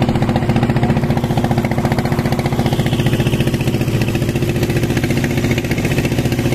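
Engine of a small wooden fishing boat running steadily under way, a fast, even pulsing drone that holds an unchanging pitch.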